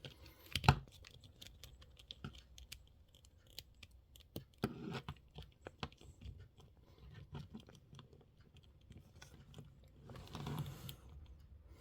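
Plastic action figure being handled and posed: scattered light clicks of its joints and plastic parts, with one sharp click about half a second in and a few short bursts of handling rustle.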